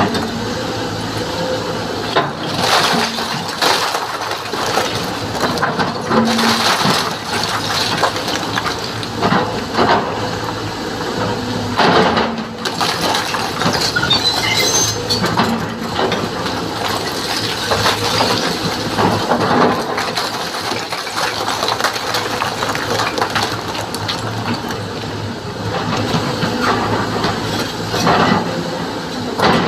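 A large SANY excavator's diesel engine running steadily under load, with repeated clatter and scraping of rock and stone as the bucket digs and handles it.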